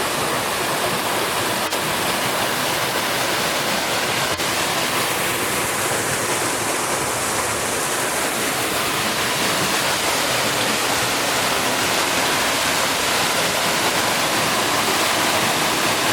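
Waterfall pouring into a creek: a steady, loud rush of falling water.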